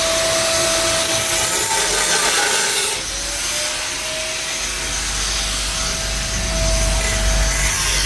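Power tool grinding metal, a steady hiss with a thin whine that sags slightly in pitch under load. The whine breaks off briefly about three seconds in, then comes back.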